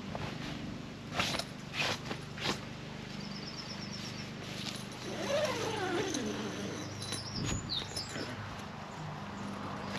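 Birds chirping, with a quick high trill and later a few sharp chirps, over a steady low hum. Three short rustling knocks come in the first few seconds, and in the middle a strong call slides down in pitch.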